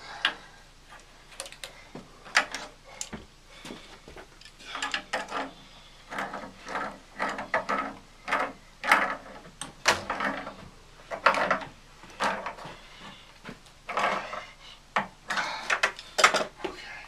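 Irregular clatter of knocks, clicks and short scrapes from handling tools and plumbing parts, coming every second or so with brief pauses between.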